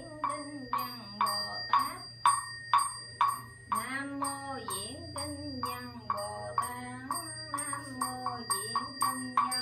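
A Buddhist nun chanting a sutra in Vietnamese, a sung recitation with gliding, held notes. It runs over a steady struck beat of about two strokes a second that carries a bright metallic ring.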